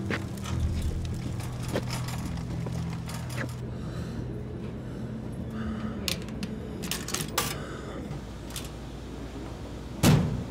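Quarters being fed into a laundromat washing machine's coin slot: a few sharp metallic clicks over a low steady hum, with a loud thump near the end.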